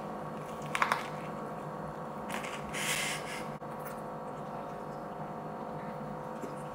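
Drinking water from a clear plastic bottle: a couple of sharp clicks about a second in, then a longer hiss of noise around the middle as the bottle is tipped.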